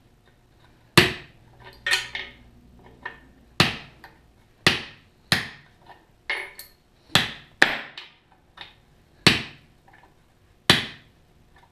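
Hammer blows on steel rod, pounding each rod down into a hole in a clamped wooden block over an anvil to bend it into a prong. There are about ten sharp, ringing strikes at uneven intervals, with light metal clatter between them.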